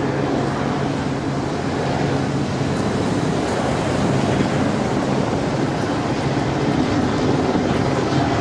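A steady low engine hum under a wide rushing noise; the hum fades about halfway through.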